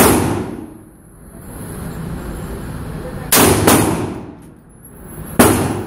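Ferfrans SOAR rifle firing single shots in an indoor range: one shot at the start, two quick shots about three and a half seconds in, and another near the end. Each shot rings on with echo off the range walls.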